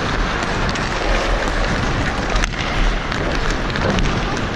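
Wind noise rumbling on a skating hockey referee's body-camera microphone, over the hiss of skates on ice, with a few sharp clicks of sticks and puck, the clearest about halfway through.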